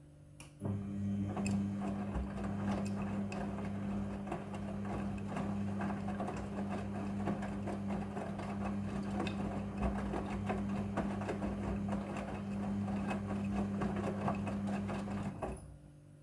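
Midea front-loading washing machine running: a steady motor hum with a busy rattle of small ticks. It starts about half a second in and cuts off suddenly about a second before the end.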